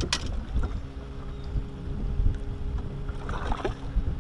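Wind buffeting the microphone with a low rumble, and a steady low hum from a bow-mounted electric trolling motor running from about half a second in until near the end. A couple of sharp clicks right at the start.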